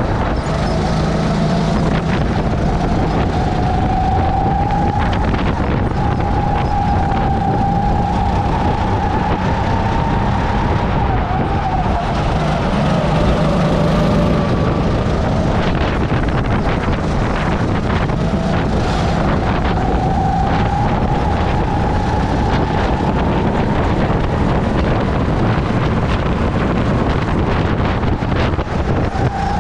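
Onboard sound of a racing kart's engine running hard, its note falling and rising again several times as the kart slows and accelerates through the corners, over steady wind and road noise.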